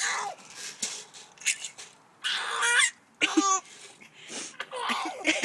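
A baby giggling in four short high-pitched bursts of laughter, with a few light rattling clicks of popcorn kernels shaken in a container between the first laughs.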